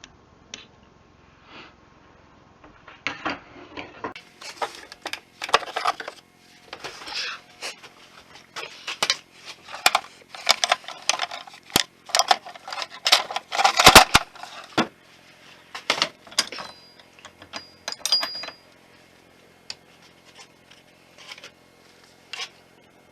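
Irregular clicking, clinking and clattering of metal tools and parts being handled on a workbench, busiest in the middle with a few sharper knocks, then thinning to occasional clicks near the end.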